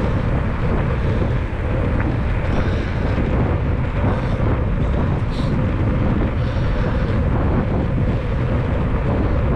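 Steady wind noise buffeting the microphone of a handlebar-mounted camera on a moving bicycle.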